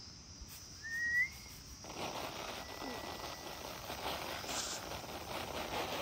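A short rising whistle about a second in, then a steady hiss of grain being poured from a round winnowing tray onto a tarp, which starts abruptly about two seconds in.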